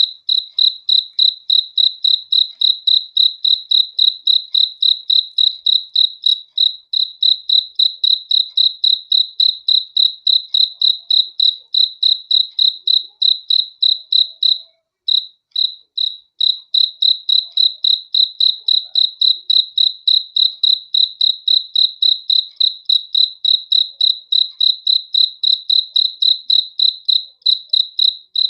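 A cricket chirping at one high pitch, an even train of about three short chirps a second, with a brief pause about halfway through.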